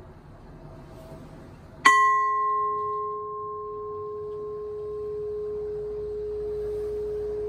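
A gong made from a cut-off welding gas tank, struck once with a wooden striker about two seconds in. It rings with a clear low tone that carries on, while its higher overtones die away within a few seconds.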